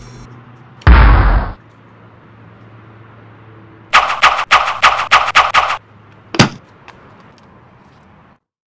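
Gunfire sound effects: a loud low boom about a second in, then a rapid burst of about nine gunshots a little before halfway, and a single shot a moment later.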